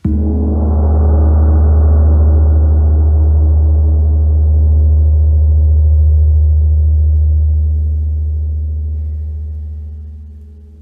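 A Zen meditation bowl bell struck once, ringing with a deep, long tone and several higher overtones that hold steady for about seven seconds and then slowly fade.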